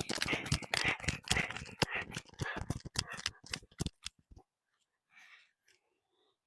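Dense crackly rustling, a rapid irregular run of small clicks and scrapes that stops about four seconds in.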